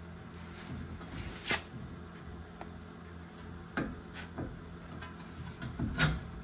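Four sharp metal knocks and clunks, the loudest about a second and a half in, as a GMC Sierra 2500's front steering knuckle and hub assembly is shifted and seated onto the new lower ball joint stud, over a steady low hum.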